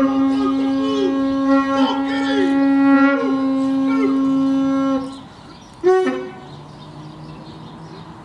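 A traditional Māori horn blown in one long steady note that cuts off about five seconds in, with short falling cries over it. About a second later comes a single sharp shout that falls in pitch.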